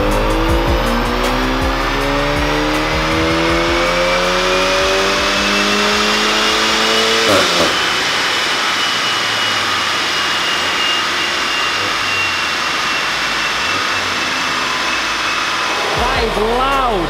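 VW Golf R's turbocharged 2.0-litre four-cylinder engine on a dyno power run in fourth gear: the exhaust is loud through a resonator delete, and the revs climb steadily, then cut off sharply about seven seconds in as the throttle is lifted. A high whine from the spinning rollers and drivetrain then slowly falls in pitch as they coast down, with a couple of brief rev rises and falls near the end.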